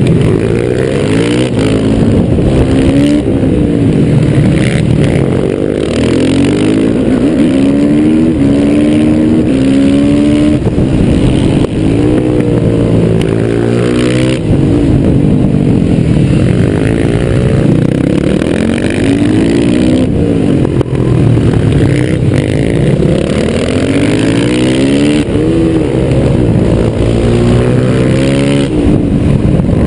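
Yamaha YZ450F's single-cylinder four-stroke engine heard on board at racing speed, revving up through the gears and dropping back into corners, over and over.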